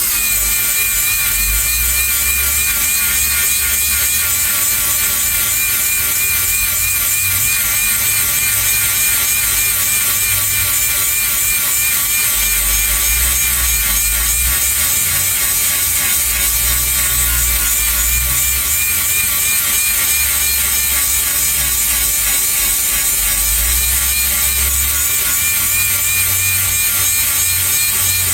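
Power grinder running steadily at full speed, grinding a steel cutting tooth on the mill drum of a Bandit Beast 4680 horizontal grinder to sharpen it: a loud, even grinding with a constant high whine.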